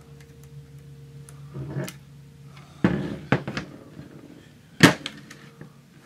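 Aluminium test-fixture chassis being handled and set down on a workbench: a few sharp clunks, the loudest about three and five seconds in, over a steady low hum.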